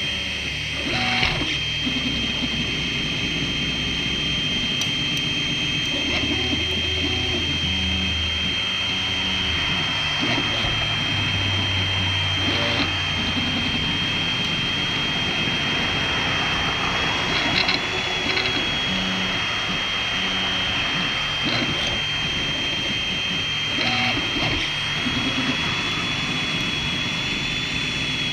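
Anet A8 3D printer printing: its stepper motors hum and whine in low tones that shift pitch every second or so as the print head and bed move, over a constant high-pitched whine, with a few light ticks.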